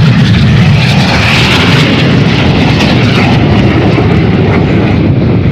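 Loud jet roar from a formation of Red Arrows BAE Hawk T1 jets flying past, their turbofan engines' hiss swelling about a second in.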